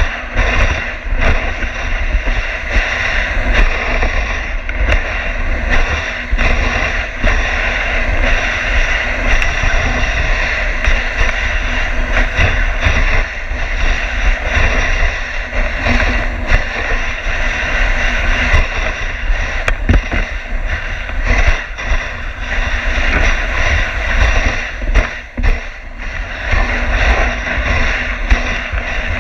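Dog sled moving over a snowy trail: a steady scraping hiss of the runners on snow, with frequent knocks and rattles as the sled bumps along. A heavy low rumble from wind and jolts on the microphone runs under it.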